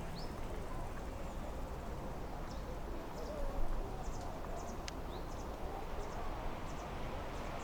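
Mountain-lake outdoor ambience: a steady low rumble of wind and background, with short high chirps of small birds scattered throughout and a single sharp click about three and a half seconds in. A faint murmur of voices runs underneath.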